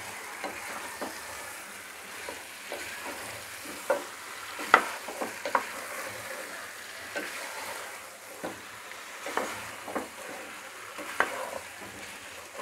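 Beef chunks frying in spiced oil in a coated pot, with a steady sizzle and irregular scrapes and knocks of a wooden spatula as the meat is turned over; the loudest knock comes a little under five seconds in. This is the bhuna stage, with the raw meat being seared in the masala.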